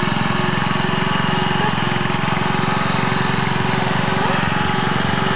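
Riding lawn mower's small engine running steadily at an even speed.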